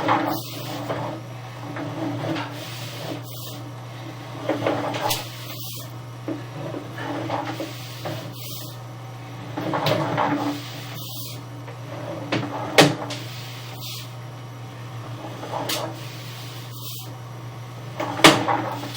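A steady low hum with irregular knocks and scraping clatter every second or two. The sharpest knocks come about two-thirds of the way through and again near the end.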